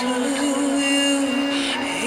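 Live band music with one long note held by a singer.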